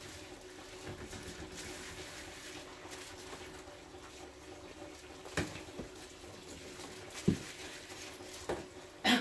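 Kitchen handling noise during cooking: a few light knocks and clicks, the sharpest about seven and nine seconds in, over a steady low hum.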